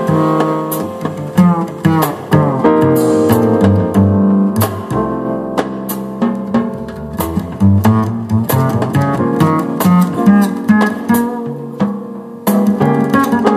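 Instrumental music: plucked guitar over bass and drums, with no singing.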